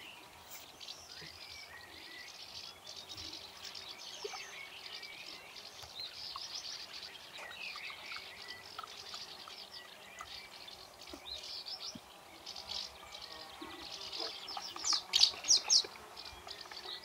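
Several garden birds chirping and singing, with a short burst of louder, sharp notes near the end.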